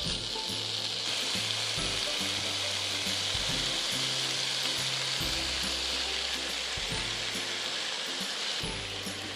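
Food sizzling steadily as it fries in hot oil, under background music with a low bass line.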